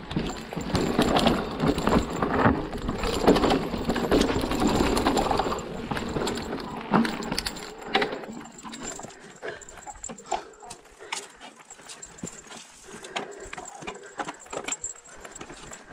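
Hardtail e-mountain bike riding down a dry forest trail: tyres rolling over dirt and roots, with the unsprung frame, chain and parts rattling and knocking over the bumps. The clatter is dense for the first half and turns lighter and more scattered after about eight seconds.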